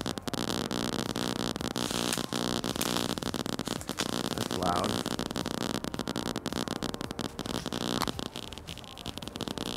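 Power-line RF noise picked up by an MFJ-852 AC line noise meter: a harsh, crackling static with a buzz running through it. It is heard through a headphone held up to the microphone.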